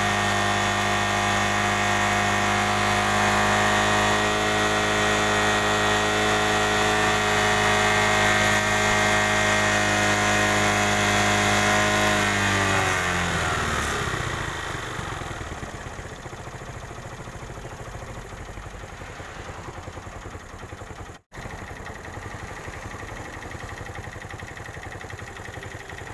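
TVS Star City 110 cc single-cylinder engine running at a steady fast idle while its carburettor idle screw is turned with a screwdriver. About 13 seconds in, the engine speed falls and it settles to a slower, quieter idle as the carburettor tuning is set.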